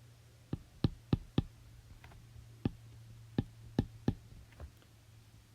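About ten short, sharp clicks at an uneven pace, over a low steady hum.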